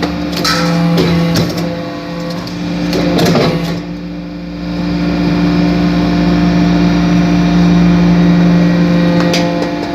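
Hydraulic metal-chip briquetting press running: the pump motor hums steadily, with a few metallic knocks in the first couple of seconds and again near the end. A deeper rumble builds from about halfway through.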